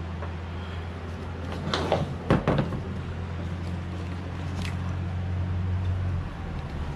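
A few sharp clicks and knocks of small engine parts being handled as the lawnmower carburetor comes off, two of them close together about two seconds in and a fainter one later. A steady low hum runs underneath.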